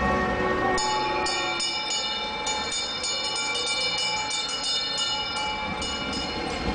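Bells struck over and over in quick, uneven strokes, their tones ringing on and overlapping.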